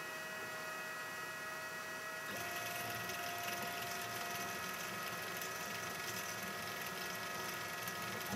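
RepStrap 3D printer's stepper motor driving the Z axis: a steady mechanical whir that starts about two seconds in and stops near the end. Under it, the constant hum of the printer's cooling fan and power supply.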